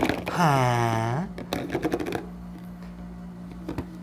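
An adult's drawn-out wordless vocal sound, falling then rising in pitch, followed by several light clicks and knocks of plastic stacking rings handled on a high-chair tray.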